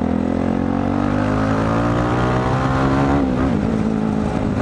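Single-cylinder engine of a Dafra Next 250 motorcycle accelerating under the rider, its pitch rising steadily through a gear, then dropping suddenly about three seconds in at an upshift before pulling again.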